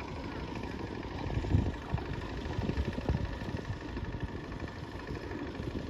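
Low, uneven rumble of wind on the microphone outdoors, with a few dull thumps in the first half.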